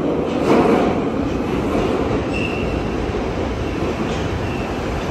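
London Underground Piccadilly line train, 1973 Stock, running in the station: a loud, steady rumble of wheels on rail, with a few faint clicks and a brief high wheel squeal about two and a half seconds in.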